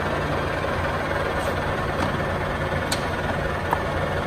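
Clausing Colchester 15-inch by 50-inch engine lathe running under power, a steady mechanical hum, with a few light clicks in the second half.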